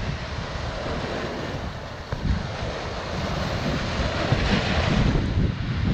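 Sea surf breaking and washing over a rocky shore, with wind buffeting the microphone; a louder wave surges in about four to five seconds in.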